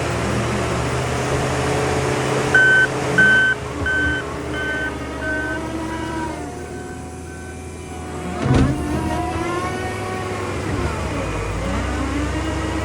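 New Holland C362 skid steer's diesel engine running and revving up and down under load, with its backup alarm beeping about twice a second for several seconds while it reverses. A single knock is heard about two thirds of the way through.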